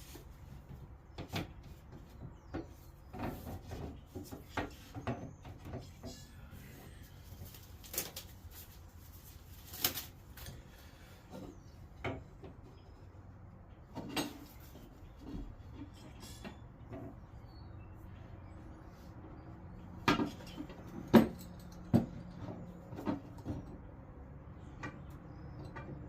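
Irregular knocks, clicks and clunks, with a cluster of louder knocks about twenty seconds in.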